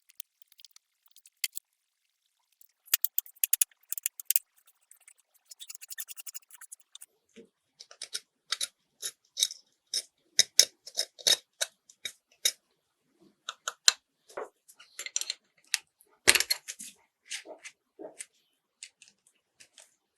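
Small clicks, taps and short scrapes of tools against the parts of a 1:24 scale model car, irregular and close, with a quick run of ticks about three to four seconds in, a scratchy stretch around six seconds and a louder knock about sixteen seconds in.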